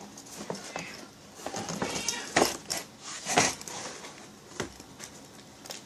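Rummaging and handling noises: rustling and scattered knocks and clacks of objects being moved, with a couple of louder scraping rustles around the middle.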